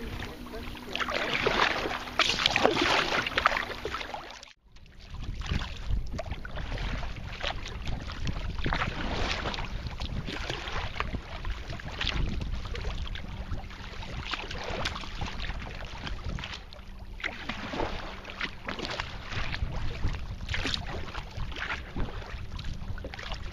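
Sea kayak paddles dipping and pulling through lake water in repeated swishes every second or two, with water lapping along the hulls and a low rumble of wind on the microphone.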